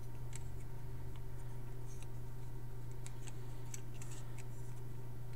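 Faint, scattered clicks of small plastic Lego pieces being handled and fitted, over a steady low hum.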